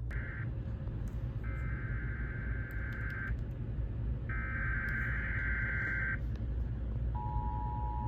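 Emergency Alert System SAME header: screeching digital data bursts, the end of one and then two more, each about two seconds long with a second's pause between them. Then, about seven seconds in, the steady two-tone EAS attention signal begins, marking the start of a new alert, here a severe thunderstorm watch. A low hum runs underneath.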